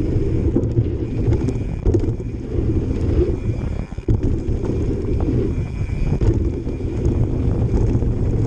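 Mountain bike riding down a dirt trail: wind buffeting the microphone, tyres rumbling over the ground and frame and chain rattling in short clicks, with a thin high buzz from the rear freehub in stretches. About four seconds in the rumble drops out briefly, then comes back with a sudden thump.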